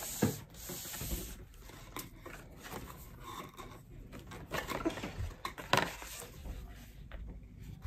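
Faint rustling and rubbing of a thin card craft template being handled and turned over, with a couple of sharper crinkles, about two seconds in and again near six seconds.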